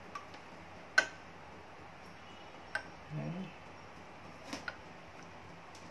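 Glass test tubes being set down on a countertop: a few sharp, separate clinks, the loudest about a second in.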